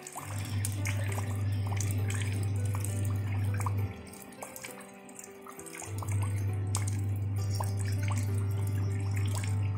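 Raindrops pattering and plinking into shallow water. Under them runs relaxation music with long, deep held notes: one breaks off about four seconds in, and another begins about two seconds later.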